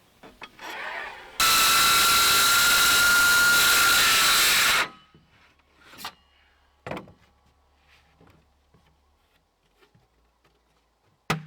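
A handheld power saw cuts marine plywood for about three seconds, a loud steady whine over the cutting noise, and stops suddenly. A few sharp knocks follow later.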